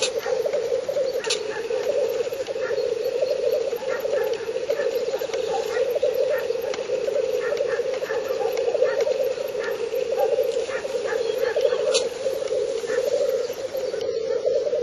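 Male black grouse lekking: the continuous low bubbling display song of several cocks runs on without a break, with a couple of brief sharp clicks.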